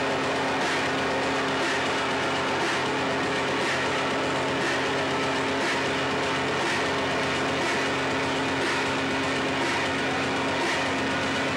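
Live electronic noise music: a dense, steady wall of distorted noise over a low drone, with a faint pulse about once a second.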